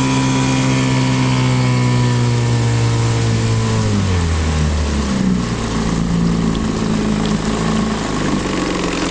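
1974 Johnson 6 hp Sea-Horse two-cylinder two-stroke outboard running under way, then throttled back about four seconds in, its speed dropping to a low, steady trolling idle over the wash of water.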